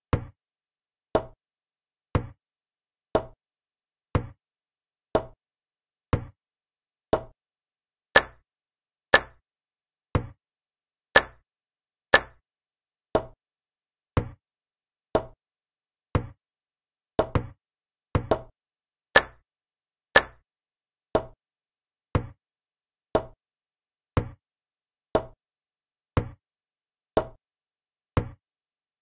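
Chess program's move sound effect: a short wooden click each time a piece is played, about once a second. The clicks on captures are louder, and castling gives a quick double click.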